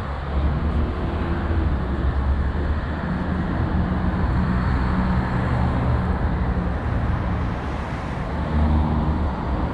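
Street traffic with a motor vehicle's engine running close by: a low steady engine hum over road noise.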